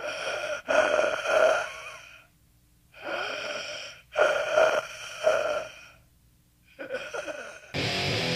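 Eerie, heavily processed breathing sound effect: several long, ragged gasping breaths with short pauses between them, a steady ringing tone running through each. Heavy, distorted guitar music comes in near the end.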